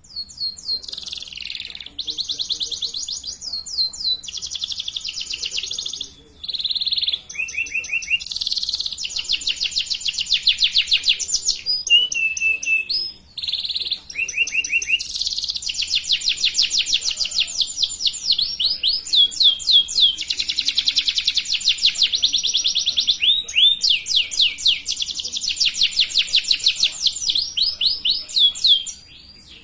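Domestic canary singing in full song: long, rapid trills of repeated high notes, with a few short pauses. It is a tutor (lure) song used to teach young canaries to sing.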